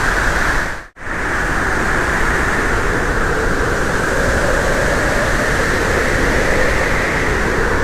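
Steady road and wind noise of a moving vehicle, a constant rushing hiss, cutting out completely for a moment about a second in.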